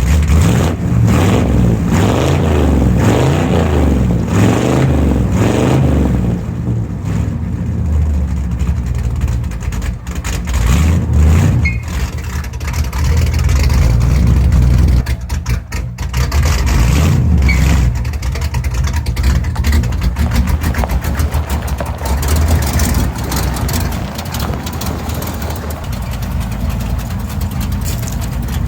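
1967 Chevelle Malibu's engine running shortly after a cold start with a choppy idle. It is revved several times early on and again about halfway through, the pitch rising and falling with each blip, then settles back to a steadier idle.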